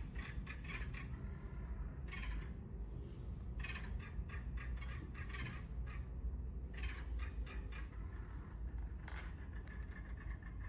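Bird calling in short, rapid bursts of chattering notes, repeated every second or two, over a steady low rumble.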